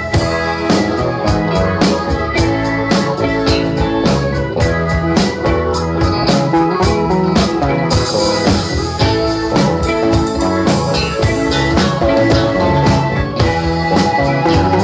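Live rock band playing an instrumental break: electric organ from a Nord Electro keyboard carries the lead over bass, electric guitars and a steady drum-kit beat. A sustained cymbal wash comes in about eight seconds in and fades a little before the end.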